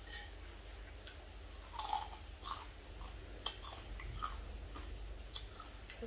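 People chewing and crunching on pickled seafood and raw vegetables close to the microphone: scattered crisp crunches and clicks, loudest about two seconds in.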